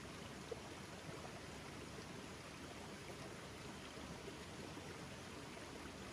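Stream water running steadily, faint, with a single brief tap about half a second in.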